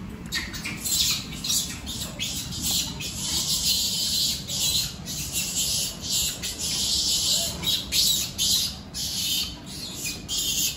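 Animal calls: a dense, continuous run of harsh squawks and chirps.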